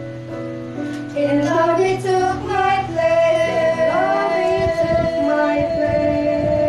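Female vocal trio, a woman and two girls, singing a gospel song into microphones over a steady instrumental accompaniment. The voices come in about a second in and hold a long note through the second half.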